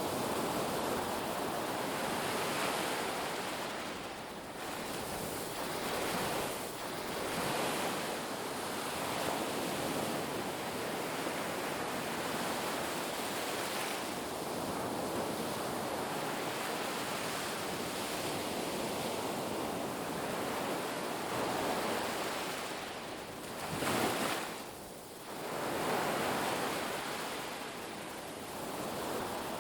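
Ocean surf washing on a beach, a steady rushing hiss that swells and eases as waves come in. One sharper, louder surge comes near the end.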